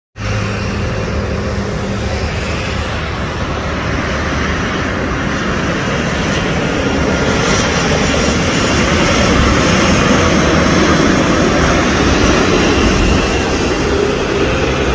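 Jet engines of a Boeing 737-800 airliner on final approach to land, a steady jet noise that grows a little louder as the plane comes closer.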